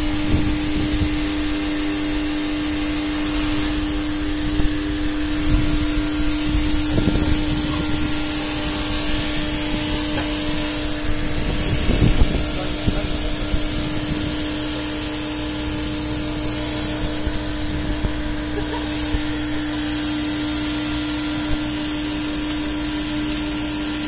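A semi-automated roof-cleaning machine's pressurized water jet hissing onto a corrugated roof, over a steady hum from the pumping machinery. A couple of low knocks sound, the louder about twelve seconds in.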